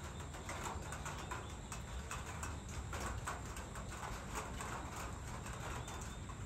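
Evening outdoor ambience: birds chirping now and then over a low steady rumble, with many quick, irregular clicks.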